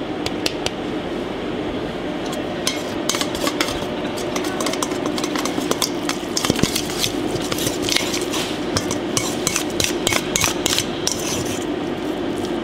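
Metal spoon scraping and clinking against a stainless steel mixing bowl in quick irregular strokes as chopped raw beef tartare is stirred with its seasonings, over a steady low hum.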